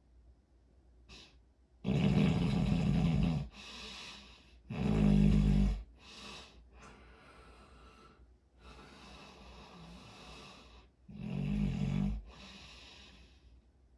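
A person snoring: three loud snores, each a second or so long, the first two close together and the last after a longer pause, with softer breaths between them.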